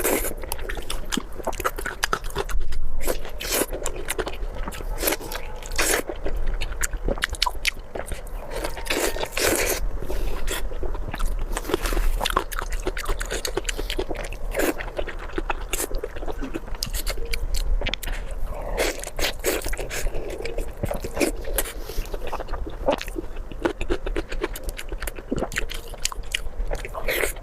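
A person biting and chewing spicy pork belly, with many quick irregular mouth clicks and smacks throughout.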